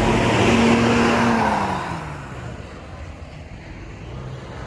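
A bus passing close by on the road: its engine note and tyre noise swell, the engine pitch drops as it goes past, and the sound fades away about two seconds in, leaving lower traffic noise.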